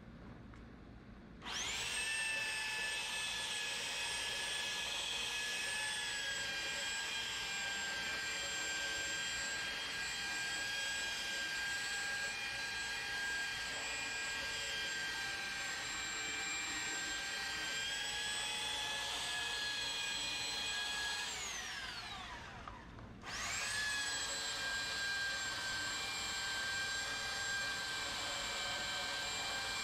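Corded electric sander running on a wooden 2x10 plank, a steady whine that starts about a second and a half in. After about twenty seconds it is switched off and spins down with falling pitch, then starts up again a second or two later and runs on.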